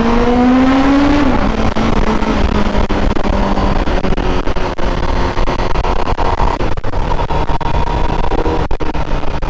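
Honda CBR1000RR-R Fireblade SP's inline-four engine through its Akrapovic exhaust, revving up under acceleration, then dropping in pitch about a second in and running on steadily at lower revs, under a loud rush of wind noise.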